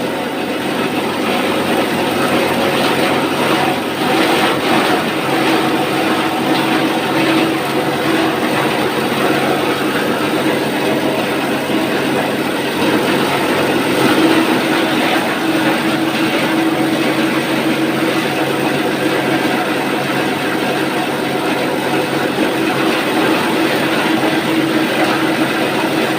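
12-inch plastic scrap grinder running steadily with a constant mechanical hum and a dense rattling noise.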